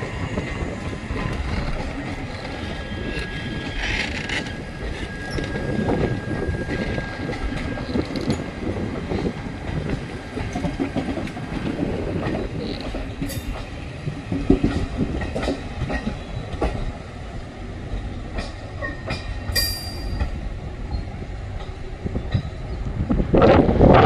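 ICF passenger coaches of an express train rolling past, wheels clattering over the rail joints in an irregular clickety-clack over a steady rumble. A thin wheel squeal sounds for a few seconds early on, and the rush grows louder near the end.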